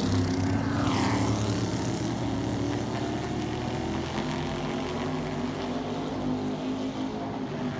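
NASCAR-style Modified race car's V8 engine at speed passing close by, its pitch falling as it goes past, then running steadily and slowly fading as it carries on around the track.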